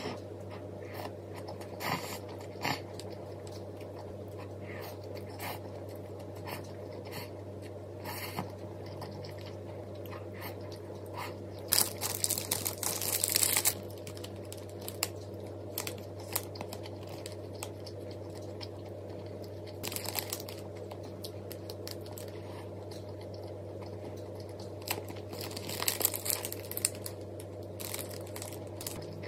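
Eating and food-handling sounds: scattered crunches and clicks, with two longer stretches of rustling and tearing, one before the middle and one near the end, over a steady low hum.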